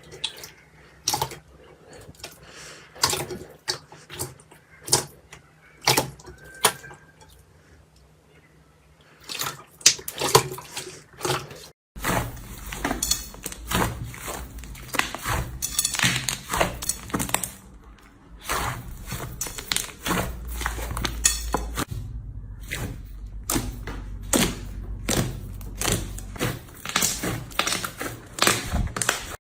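Slime being squeezed and poked by hand: a run of sharp clicks and wet pops. About twelve seconds in it changes to a denser, busier crackling over a low hum.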